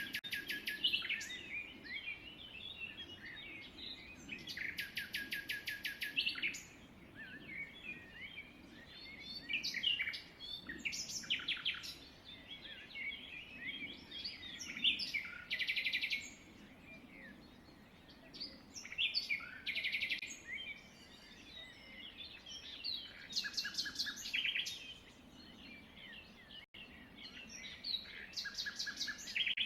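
Songbirds chirping and singing, with a rapid trill repeated every few seconds among scattered short chirps, over a faint low background rumble.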